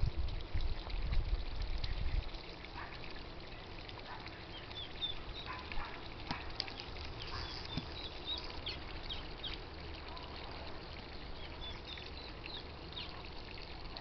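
Birds giving short, high chirps and peeps, scattered through the middle, over a faint steady trickle of water. A low rumble runs for the first two seconds.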